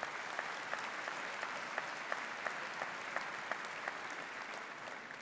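Audience applauding, with one nearby pair of hands standing out at a steady beat of about three claps a second. The applause begins to fade near the end.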